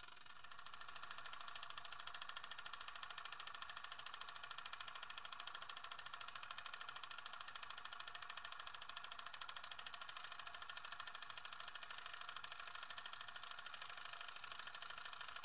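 Film projector running: a rapid, even mechanical clatter of many clicks a second over a steady hiss.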